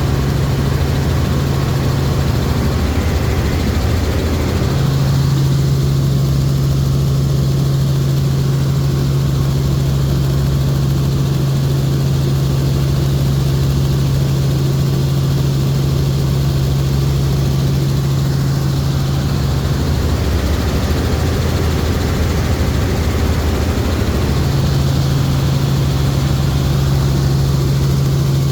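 Helicopter engine and rotor noise heard from inside the cabin during flight: a loud, steady drone with a strong low hum that fades out twice for a few seconds and comes back.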